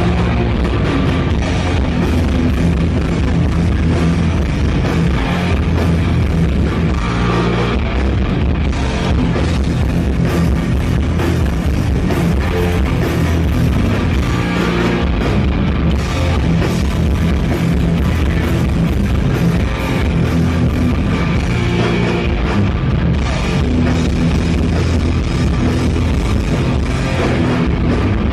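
A live New York hardcore band playing loud and without a break: distorted electric guitars over a drum kit.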